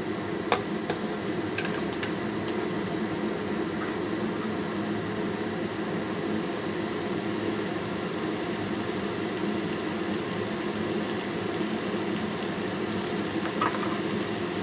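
Steady hum from the stovetop as a pan of potato, tomato and ox tail cooks, with a sharp click about half a second in, another a second later, and one more near the end.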